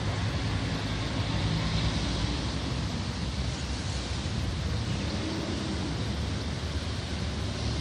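Pond outflow water running down a roadside ditch in a steady rush, with road traffic going by.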